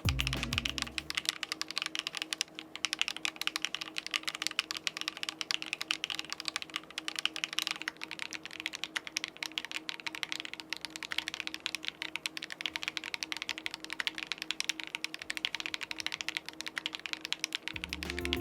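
Typing on a MatrixLab PLATO75 custom mechanical keyboard: a fast, continuous run of keystroke clacks with no pauses.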